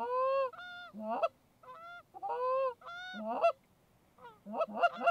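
Canada geese honking: a string of two-note honks, some drawn out. There is a short lull about three and a half seconds in, then a quicker run of short honks near the end.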